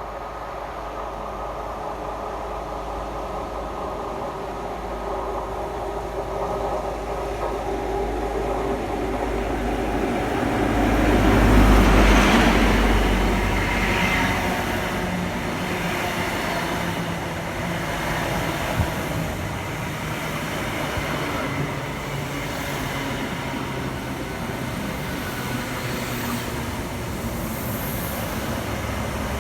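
Class 43 HST power car's diesel engine running as the train pulls into the station, growing louder to a peak about twelve seconds in as the power car passes, then running steadily at a lower level.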